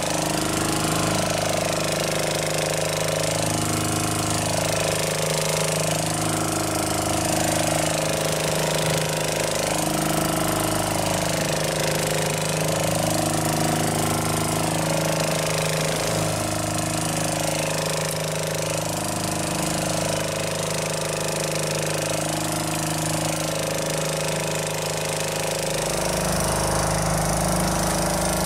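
Fishing boat's engine running steadily, with a deeper low rumble coming in near the end.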